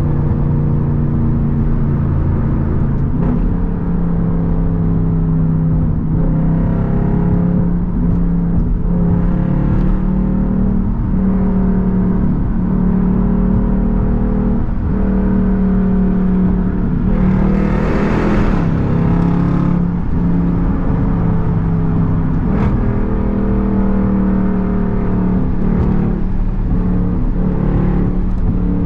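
Straight-piped Jeep SRT V8 exhaust droning loudly at freeway cruise, heard from inside the cabin, its pitch dipping and rising slightly with the throttle every few seconds. A brief rush of hiss comes about two-thirds of the way through.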